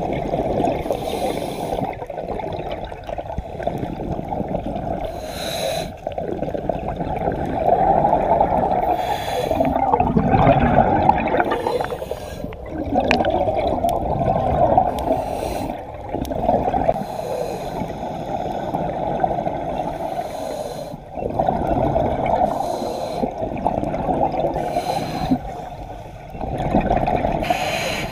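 Scuba diver's regulator breathing underwater: each breath drawn in, then a rush of exhaled bubbles, repeating every few seconds. The sound is muffled, with little above the low and middle range.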